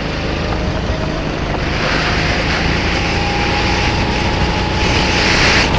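Sodi RT8 kart's engine running hard on a flying lap, its pitch climbing slowly as the kart accelerates. A rush of wind and road noise grows louder about two seconds in.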